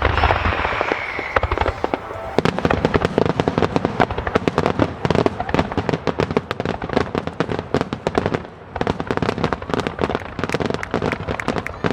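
Fireworks display: after a falling whistle-like tone in the first two seconds, a dense barrage of shells bursting and crackling in rapid succession, with sharp cracks packed close together.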